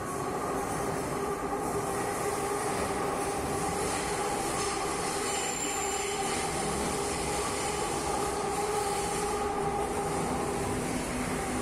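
Madrid Metro train pulling into an underground station: steady running noise with high squealing tones held throughout, easing slightly near the end.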